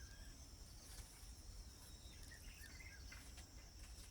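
Faint outdoor birdsong: scattered short bird chirps over a steady high-pitched insect trill.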